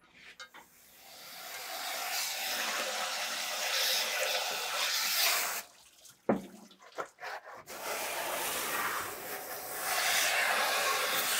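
High-pressure spray wand hissing as it blasts water over a 6.7L Cummins cylinder head, washing machining shavings off after resurfacing. The spray stops about halfway through, a single sharp knock follows, and the spray then starts up again.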